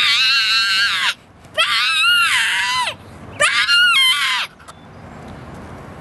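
A young girl's voice screeching three long, high-pitched calls in imitation of a bird's cry, each lasting a little over a second with short gaps between.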